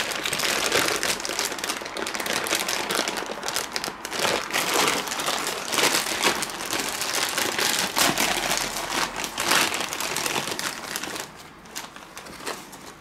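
Clear plastic bag crinkling and rustling as bundled power-supply cables are handled and pulled from it. It dies down near the end.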